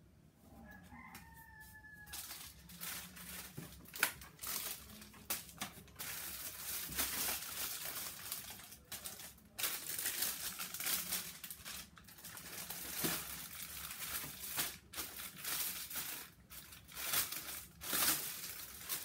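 Plastic wrapping and bagged clothes crinkling and rustling in quick, irregular bursts as garments are pulled from a shipping box and unwrapped. A brief faint call comes about a second in, before the rustling starts.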